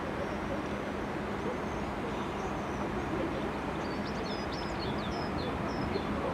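A railway diesel engine running steadily, with small birds chirping briefly about four to five seconds in.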